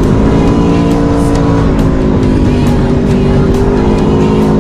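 Aprilia Tuono V4 1100 Factory's V4 engine running at a steady road speed under way, its pitch easing down slightly and settling again.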